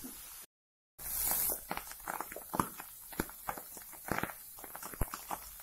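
Plastic spatula clicking and scraping against a frying pan and a plate as ingredients are stirred and pushed in: a quick, irregular run of small knocks and scrapes. The sound drops out completely for about half a second near the start, then comes back with a brief hiss.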